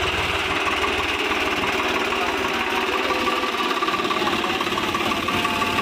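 A diesel engine running steadily with a rapid, even clatter, from the tractor pulling the idol's trailer or a generator powering the lights.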